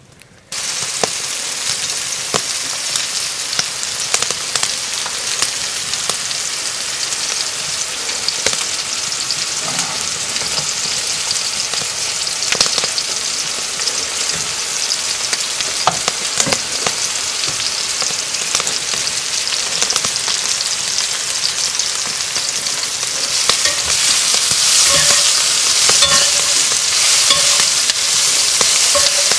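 Home fries bubbling in hot oil in a cast iron pot and deer steaks sizzling in a cast iron skillet, with scattered clicks and scrapes of the utensils against the pans. Near the end the sizzle gets louder as sliced onions frying in a cast iron skillet are turned with a spatula.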